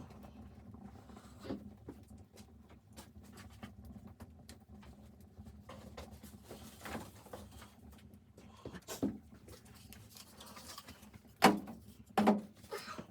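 Scattered faint clicks and a few sharper knocks over a faint steady low hum; the loudest knock comes about eleven and a half seconds in, with another shortly after.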